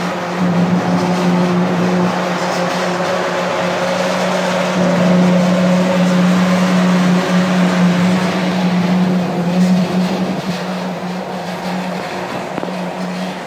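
Commercial washer extractor running: a steady, loud machine hum with a whirring noise over it, swelling in the middle and easing slightly near the end.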